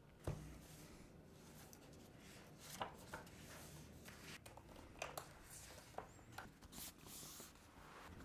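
Faint handling sounds at a desk: uni-ball eye micro rollerball pens lifted and set down, and a book and notebook moved about, giving a scattering of small taps and rustles over a quiet room background.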